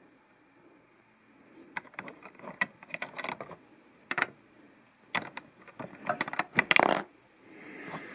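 Plastic LEGO pieces clicking and clattering as they are handled and fitted together, in scattered bursts of rattling that grow busier in the second half.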